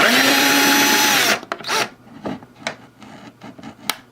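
Cordless power drill running at steady speed for about a second and a half, its pitch dropping as it stops, followed by a few light knocks and clicks.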